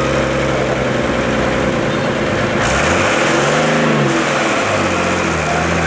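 Heavy lorry's diesel engine pulling under load through a rough, muddy corner: it runs steadily, then revs up and back down about three seconds in. A loud hiss comes in suddenly about two and a half seconds in.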